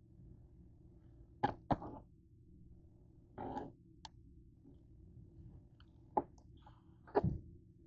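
Kitchen knife cutting raw chicken breast on a cutting board: a few sharp taps of the blade against the board, a second or more apart, and one short scraping sound about halfway through, over a low steady hum.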